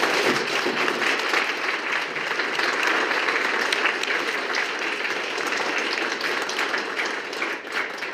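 Audience applauding, a dense, steady run of clapping that starts to tail off near the end.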